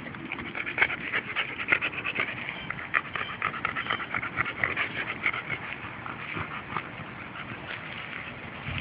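Seven-month-old pocket American Bully dog panting in quick, uneven breaths. The breathing is busiest in the first half and eases off toward the end.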